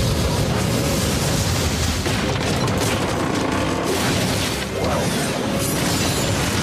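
Cartoon action sound effects: a continuous booming, rumbling rush with crashing debris as a wooden contraption is smashed apart.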